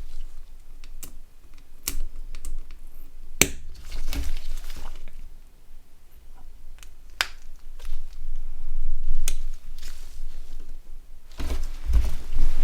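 Irregular sharp plastic clicks and taps as small buttons are pushed and pried out of a Nokia N91 phone's housing, a few seconds apart, with duller handling knocks near the end.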